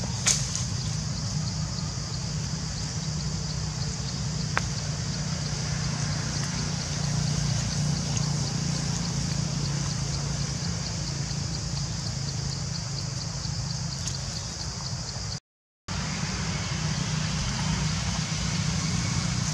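Steady outdoor background noise: a low hum under a high, even hiss, with a couple of faint clicks. The sound cuts out for about half a second roughly three quarters of the way through.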